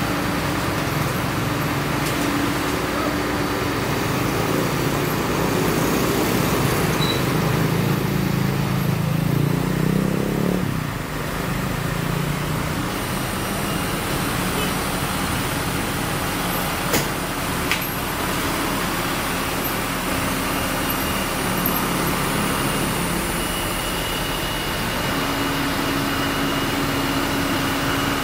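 Komatsu PC130 excavator's diesel engine running steadily. It works harder for several seconds, then eases off about a third of the way through. Two short sharp clicks come later.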